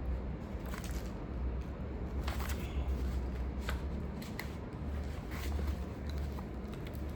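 Paper documents being handled and put into a file: scattered soft rustles and clicks over a steady low hum.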